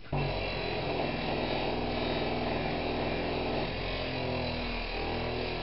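Electric polishing machine running at steady speed, a constant motor hum and whir that starts suddenly at the beginning, throwing off fine fibres as it works on a metal casting.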